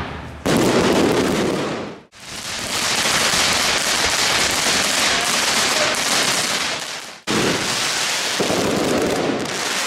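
Consumer firework batteries firing: a dense, continuous crackling hiss. It breaks off sharply and restarts about half a second in, at about two seconds and at about seven seconds, as separate clips are cut together.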